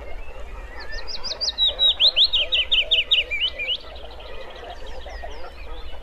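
Wood warbler singing: a string of short, steeply falling high notes that quickens into a trill and steps down in pitch partway through, lasting about three seconds.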